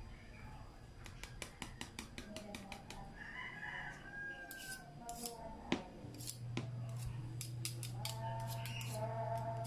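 Wire whisk beating thick corn muffin batter in a plastic mixing bowl: irregular clicks and scrapes of the tines against the bowl. Pitched calls sound in the background about three seconds in and again near the end, and a low steady hum starts about six seconds in.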